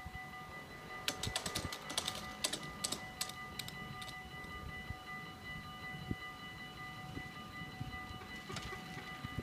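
Level-crossing warning bells ringing steadily as one held ringing tone. About a second in, a burst of sharp rattling clicks lasts roughly three seconds, and a few more clicks come near the end.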